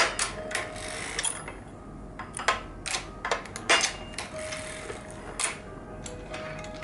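Harrison semi-automatic circular sock knitting machine being hand-cranked through the heel, its needles and cams clicking irregularly, about a dozen sharp clicks, with a few short metallic rings between them.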